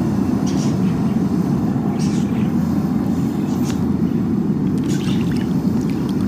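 A hand sloshing in a bucket of water, with a few small splashes, over a loud, steady low rumble.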